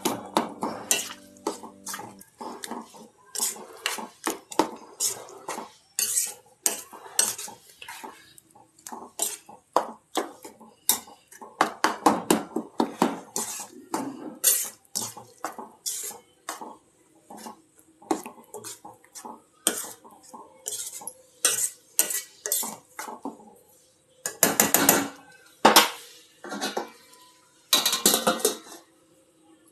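A metal spoon or ladle clinking and scraping against pots and dishes in many quick, irregular strokes, with short pauses between runs.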